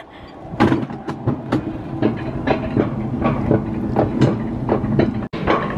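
Mountain coaster cart rolling down its steel rail track, its wheels rattling and clacking again and again over a steady low rumble.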